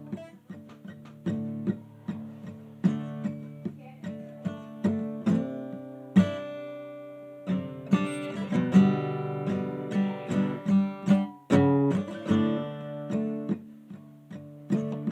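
Acoustic guitar music, plucked and strummed chords in a steady rhythm.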